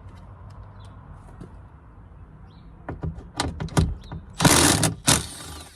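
An impact gun fitted with a 10 mm socket runs in two short bursts near the end, backing out a door screw, after a few sharp knocks of the tool and socket against the door. The sound cuts off suddenly at the very end.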